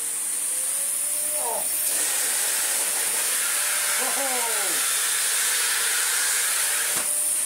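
Miele Medicair Mini 1600 canister vacuum cleaner running with an EcoTeQ Plus floor head on a rug: a steady rush of suction with a high thin motor whine. The sound changes about two seconds in and changes back near the end, with a single click near the end.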